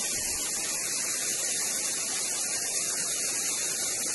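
Steady high-pitched hiss with a low rumble underneath, even throughout with no distinct events.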